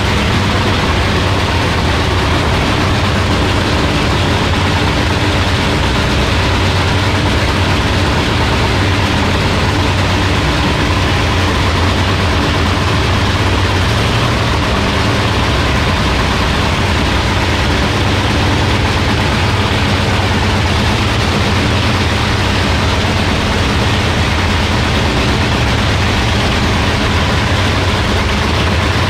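Drag race car's engine idling loudly and steadily, with no revving.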